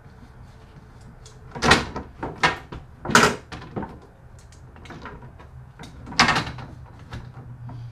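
Patio umbrella crank handle being twisted back and forth and pulled out of its opening in the pole: several short, loud metal scrapes and rattles, the loudest about two, three and six seconds in.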